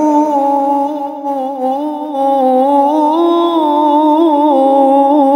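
Male qari reciting the Quran in the melodic tilawah style, holding one long drawn-out note with small wavering ornaments. The pitch steps up around the middle of the note and settles back down.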